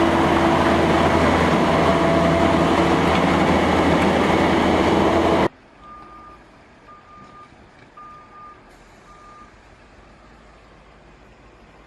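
Heavy road-construction machinery running loudly and steadily, with a diesel-engine hum; it cuts off abruptly about five seconds in. A fainter backup alarm then beeps a few times at one steady pitch.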